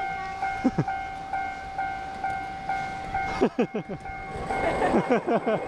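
Railroad crossing warning bell at a miniature railway crossing, ringing in regular 'kan-kan' strokes about twice a second. Voices call out over it in the second half, while the noise of the approaching ride train builds near the end.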